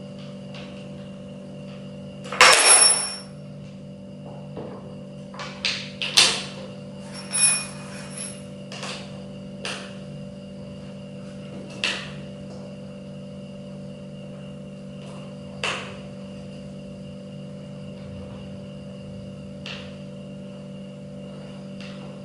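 Scattered knocks, clicks and rattles of a plastic office chair's parts being handled and fitted together during assembly. The loudest is a clatter about two and a half seconds in, followed by a busy run of knocks, then single clicks every few seconds, over a steady hum.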